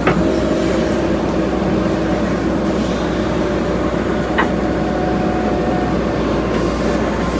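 JCB 3DX backhoe loader's diesel engine running steadily under work, with a faint whine in it, and two sharp knocks, one at the start and one about four seconds later.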